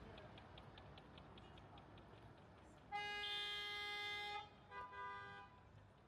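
A vehicle horn gives one long honk of about a second and a half, then two short toots. Before it, a faint rapid ticking fades out.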